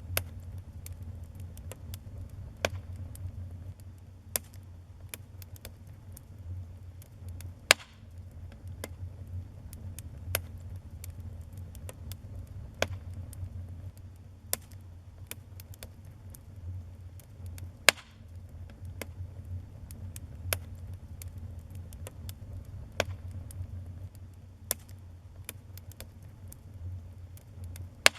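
Wood fire in a fireplace crackling: irregular sharp pops and snaps over a low, steady rumble of the burning fire, with two louder pops about 8 and 18 seconds in.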